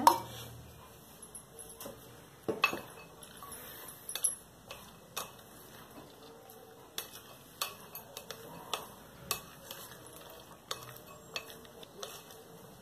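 Wooden spatula tossing a sprouts salad in a glass bowl, knocking against the glass in irregular sharp clicks, about one or two a second, with a louder clink right at the start.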